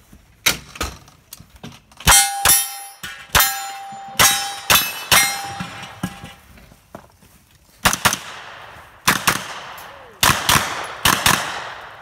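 Rapid gunfire from a pistol-caliber carbine during a timed USPSA stage: shots mostly in quick pairs with short pauses between. A few seconds in, several shots are followed by the ring of steel targets being hit.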